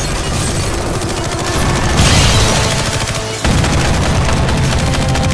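Sustained automatic gunfire from several rifles firing at once, a dense rapid stream of shots that jumps louder about three and a half seconds in.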